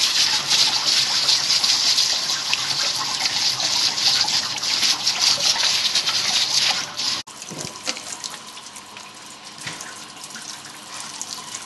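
Water running hard in a steady splashing hiss, which drops suddenly to a quieter flow about seven seconds in.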